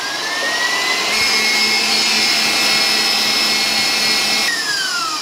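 Stand mixer running its wire whisk through egg whites in a stainless steel bowl: the motor's whine climbs as it comes up to high speed during the first second, holds steady, then winds down near the end.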